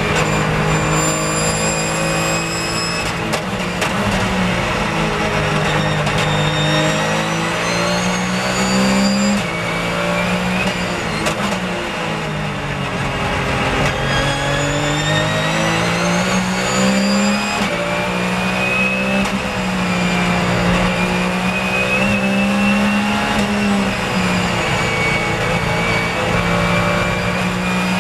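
Porsche 911 GT3 Cup race car's flat-six engine heard from inside the cockpit at full racing pace. It winds up through the gears with sudden drops in pitch at each upshift, falls in pitch as the car brakes and downshifts for a slow corner about ten seconds in, then pulls hard again.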